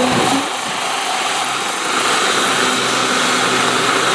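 Giant-scale RC Bell AH-1 Cobra model's turbine engine running with a steady high-pitched whine, its rotors turning while it sits on the ground just after touchdown.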